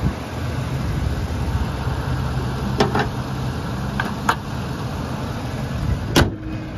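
2008 Ford E-150 van engine idling steadily, heard from above the open engine bay with wind on the microphone. A few sharp clicks sound in the middle, and a louder one comes near the end.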